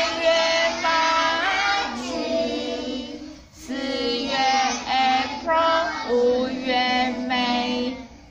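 Young children singing together in long held notes, with a woman's voice singing along, in a song naming the months of the year.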